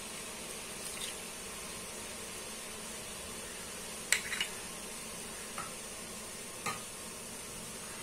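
Boondi, drops of gram-flour batter, deep-frying in hot oil in a steel kadai: a steady sizzle, with a few short sharp clicks, the loudest about four seconds in. The sizzle is strong because the drops are still giving off moisture, so they are not yet done.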